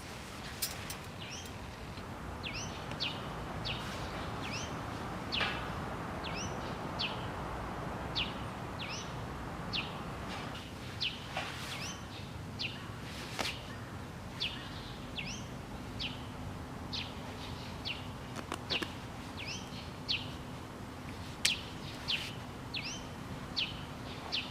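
A small bird chirping over and over in short, sharp calls, about one or two a second, over a steady low background rumble, with a few sharp clicks now and then.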